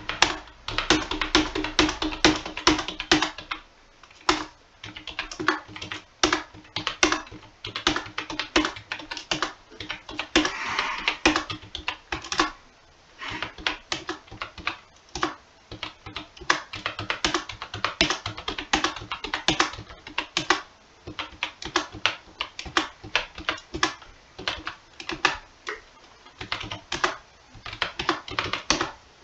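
Computer keyboard being typed on in irregular runs of sharp key clicks with brief pauses between them, as numbers and Enter are keyed in one line at a time.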